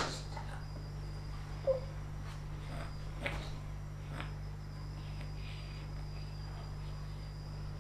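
Quiet kitchen room noise: a steady low hum and a faint high whine, with a few soft clicks, likely from the feeding spoon and bowl, and a brief short squeak a little under two seconds in.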